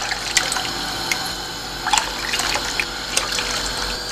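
Hot broth poured in a thin stream from a small cup into a saucepan of thick egg-and-flour mixture while it is stirred, with a few light clicks of the utensils against the pan.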